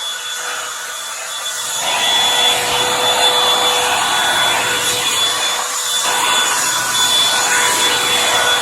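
Revlon One-Step hot-air brush dryer running, a steady rush of air with a thin motor whine; the rush grows louder about two seconds in as the brush is worked through the hair.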